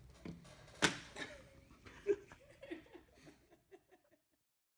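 A single sharp knock about a second in, then a woman laughing in short rapid bursts that fade away.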